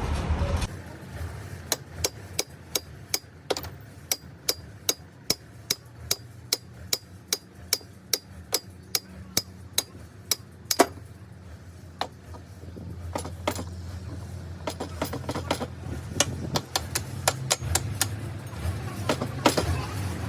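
Hammer blows struck at an even pace, about two a second, for roughly ten seconds, with the loudest blow near the end of that run. Slower, irregular strikes follow.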